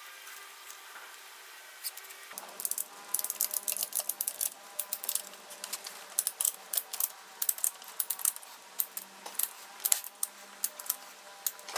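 Ratchet strap buckle being cranked, a run of quick metallic clicks in uneven spells starting about two seconds in. The strap is being tightened to pull the snowmobile skid's rear idlers down and shorten the suspension.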